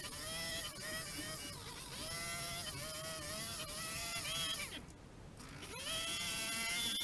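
Hedge trimmer running at high speed while cutting shrubs, its whine sagging and recovering every second or so as the blades bite. About five seconds in it winds down briefly, then speeds back up with a rising whine.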